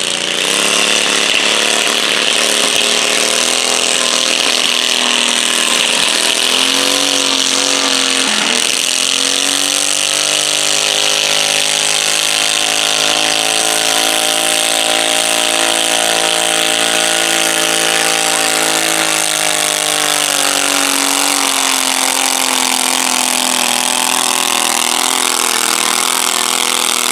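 A stock garden pulling tractor's engine runs hard under full load as it drags a weight-transfer sled. Its pitch dips and recovers about a third of the way in, climbs and holds, then sags and stays lower as the sled bogs the tractor down toward the end of the pull.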